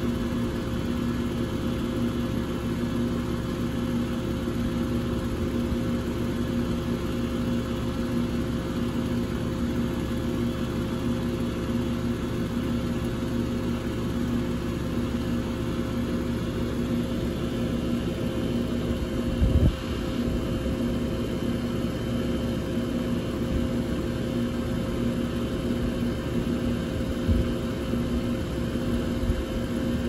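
A 2001 York 2-ton air conditioner running steadily: a continuous hum with a low steady tone. A brief low thump about two-thirds of the way through.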